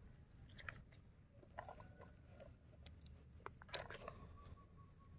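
Faint wet crunching and small plastic clicks of a toy excavator and dump truck being worked by hand in wet mud, with a few sharp clicks about three and a half seconds in.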